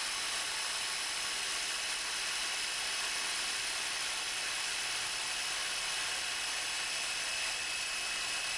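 Steady background hiss with a few faint, high, constant tones and no distinct events.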